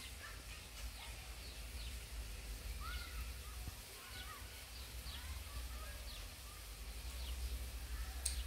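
Faint birds chirping and calling in short, scattered notes over a low steady hum, with a small click near the end.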